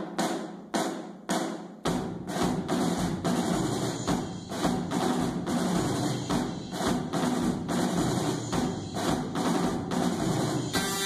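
Music with a heavy drum beat: a few single booming hits, then a steady driving percussion rhythm from about two seconds in. Near the end a buzzing electric tone joins in.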